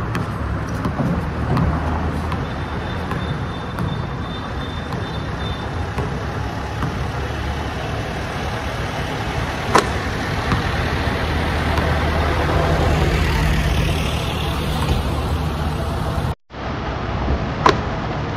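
Steady traffic rumble from vehicles on the elevated road overhead, with a low engine hum. A basketball hits the hoop with a sharp knock about ten seconds in and again near the end.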